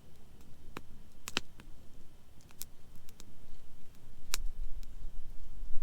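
Wood burning in a campfire, crackling with scattered sharp pops, the loudest about four seconds in, over a faint low rumble.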